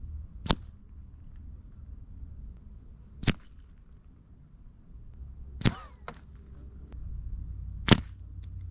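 Four suppressed shots from a Savage Mark II FV-SR .22 LR bolt-action rifle, fitted with a Sig Sauer SRD22X suppressor and firing subsonic 40-grain rounds. The shots are short and sharp and come about two and a half seconds apart, with a faint click between the third and fourth.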